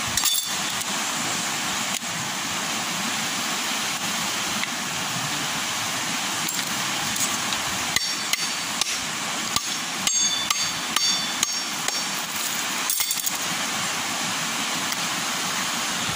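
Machete chopping a coconut on a rock: irregular sharp strikes, a few in the middle with a short metallic ring, over the steady rush of the river.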